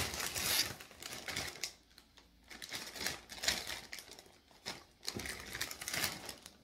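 Large Smartfood popcorn bag crinkling and crackling as it is pulled open and handled. The crackling comes in bursts, with a short quiet gap about two seconds in.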